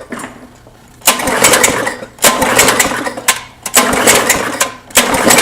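Tecumseh Vantage 3.5 hp lawn mower engine being cranked by its recoil pull cord, four pulls of about a second each, without catching. It turns over with a weak sound that shows how little compression is left in this blown engine.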